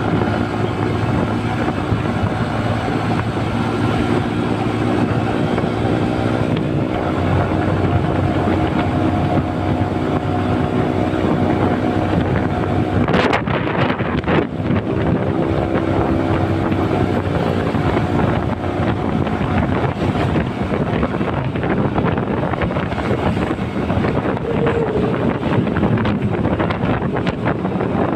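Motorcycle engine running while riding, its pitch shifting up and down with speed, with wind rushing over the microphone.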